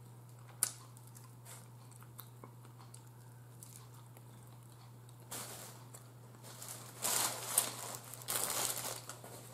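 Close-up eating sounds of a person picking meat off a fried chicken wing and chewing it, with a sharp click about half a second in and several short noisy bursts in the second half.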